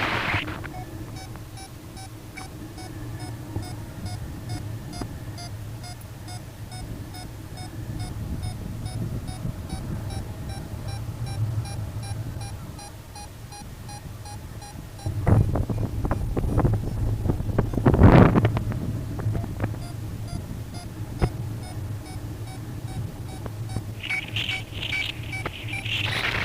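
Rapid, evenly repeated electronic beeping of a drone remote controller's warning alarm, over wind rumbling on the microphone. The beeping breaks off for a few seconds past the middle while a strong gust hits the microphone.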